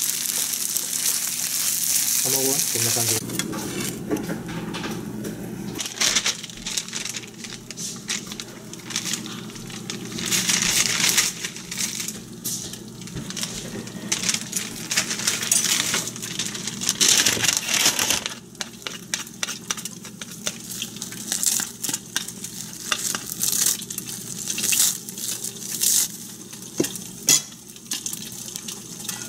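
Pork kimchi fried rice sizzling in a frying pan while a spatula stirs and scrapes it. The sizzle is loudest for the first three seconds, then goes on quieter under irregular clicks and scrapes of utensils.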